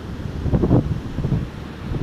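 Wind buffeting the microphone in irregular gusts, the strongest about half a second in, over the steady wash of ocean surf breaking on the beach.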